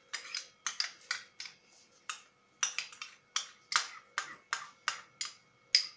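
Metal spoon scraping and tapping against a small ceramic bowl while scooping out Dijon mustard: a quick series of short scrapes and clicks, about three a second.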